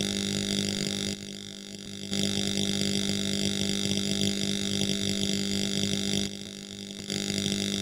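Electric arc welding: a steady buzzing hum with a hiss over it, breaking off twice for about a second, where the arc stops, before starting again.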